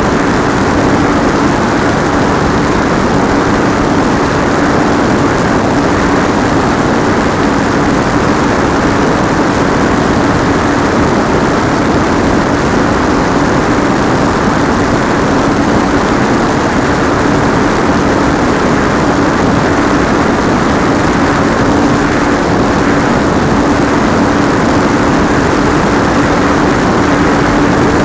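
Radio-controlled plane's pusher propeller and motor running at a steady throttle, picked up by an onboard camera. It sounds as one held hum-like tone under rushing airflow noise.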